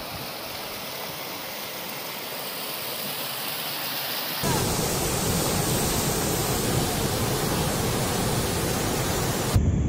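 Rushing floodwater, an even roar of flowing water with no distinct events. It turns louder and deeper about four and a half seconds in, where water pours over an overflowing tank's spillway.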